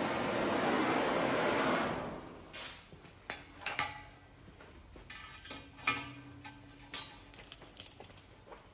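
A steady rushing hiss that stops about two seconds in, followed by light, scattered metallic clinks and taps as a red-hot steel rod held in locking pliers is worked against the edge of a steel plow disc.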